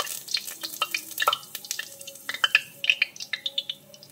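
Curry leaves spluttering in hot cooking oil: a frying hiss dies down at the start, then scattered sharp pops and crackles that thin out.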